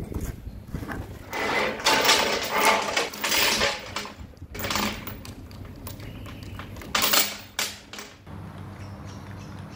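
Heavy steel lifting chain clinking and rattling as it is handled around a bottle jack and drags on steel plate, in irregular bursts. Near the end a steady low hum takes over.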